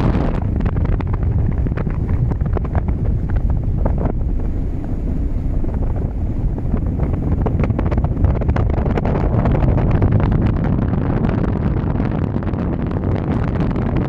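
Wind buffeting the microphone aboard a ship at sea: a loud, steady low rumble with frequent small crackles.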